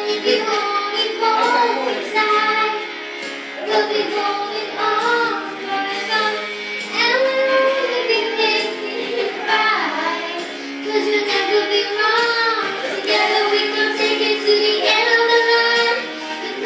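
Music: a singing voice holding and gliding between notes over a steady instrumental backing.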